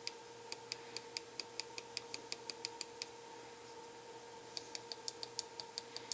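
Small tactile push-buttons on a DSO138 digital oscilloscope kit clicking in quick runs, about five presses a second, as the time base is stepped. There are two runs with a short pause between them, over a faint steady tone.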